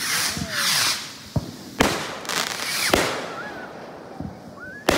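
Fireworks going off: a sudden loud rush of noise at the start, then a string of sharp bangs spread across the few seconds, the last one near the end.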